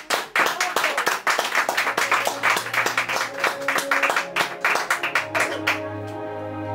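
Hand clapping from an audience, dense and sharp, stopping about six seconds in. Slow ambient music with long held low notes swells up underneath and continues.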